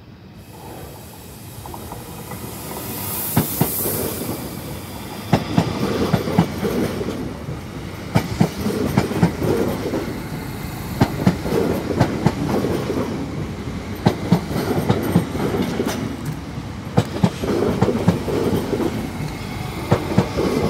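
SNCB AM08 Desiro electric multiple unit passing at close range. Its rumble grows over the first few seconds as it approaches, then its wheels clack over the rail joints in quick pairs as each bogie goes by.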